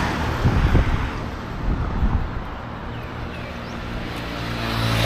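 Road traffic: a motor vehicle going by, its engine hum growing louder toward the end.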